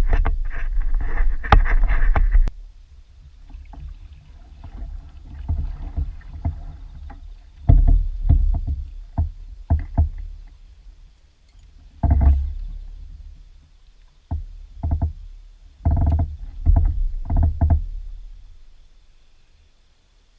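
Knocks and clatter on a fishing kayak (Native Slayer Propel 10): a dense run of knocking over the first two seconds or so, then separate clusters of knocks every few seconds over a low rumble, dying away near the end.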